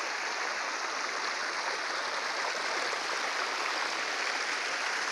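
Shallow river water rushing steadily over stones and spilling over a row of rocks.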